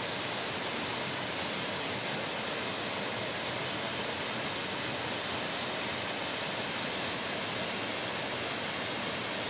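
A mountain waterfall's steady rush of falling water, an even hiss that does not change.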